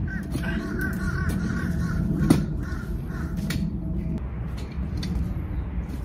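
Birds calling outdoors in a run of wavering, harsh calls over the first three seconds, with one sharp knock a little past two seconds in.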